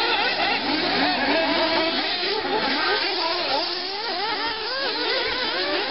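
Several 1:8-scale nitro off-road RC buggies racing, their small two-stroke glow engines revving up and down at once in overlapping, constantly rising and falling pitches.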